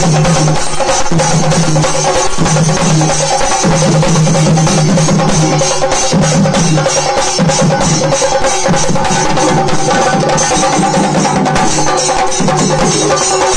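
Ensemble of Kerala chenda drums beaten with curved sticks, playing a loud, fast, unbroken chenda melam rhythm of dense, rapid strokes.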